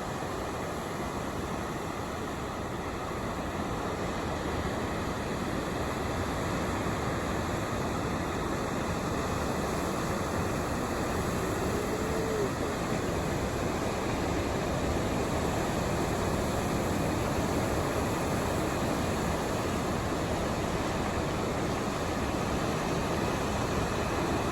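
Steady roar of typhoon-driven surf breaking, growing slightly louder after the first few seconds. A brief faint rising-then-falling whistle comes about twelve seconds in.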